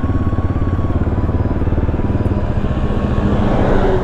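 Motorcycle engine running steadily, with rapid even firing pulses; the sound swells a little near the end.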